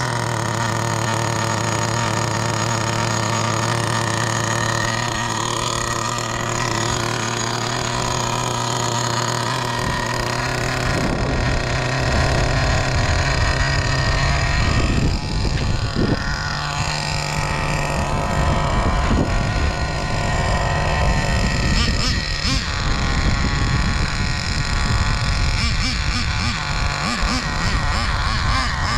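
Traxxas Slayer Pro 3.3 nitro RC truck's TRX 3.3 two-stroke glow engine idling steadily, then from about 11 seconds in running louder and rougher as the truck is driven, its pitch rising and falling with the throttle.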